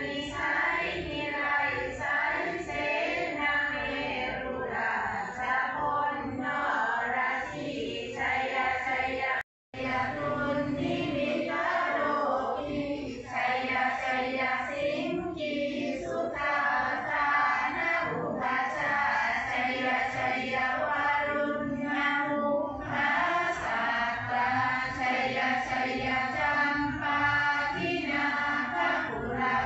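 A group of voices chanting Thai Buddhist prayers together in a continuous recitation, broken by a brief silence about nine and a half seconds in.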